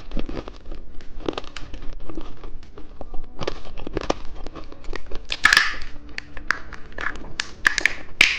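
Plastic candy wrappers crinkling and rustling, with many sharp clicks and taps as the packets are handled.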